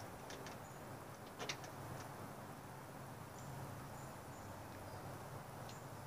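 A few light metallic clicks, the loudest about one and a half seconds in, from a hand pop rivet gun being squeezed to crimp a threaded insert into thin material. Under them, faint outdoor ambience with a low hum and a few short high chirps.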